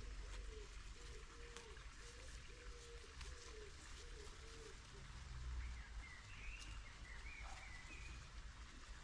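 Garden birdsong: a low call repeated about twice a second for the first four seconds or so, then a songbird's short chirps about six seconds in, over a low steady rumble. Faint rustling of leaves as a potted sapling is handled.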